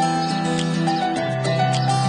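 Background music: soft melodic tune with held notes and light ticking percussion.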